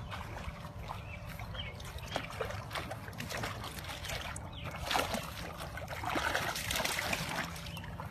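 Water splashing and trickling among scattered clicks and rustles, loudest for a couple of seconds past the middle, over a steady low rumble.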